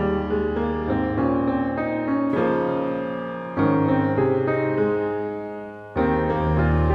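Instrumental background music led by a keyboard playing chords, with new chords coming in strongly about two and a half, three and a half and six seconds in.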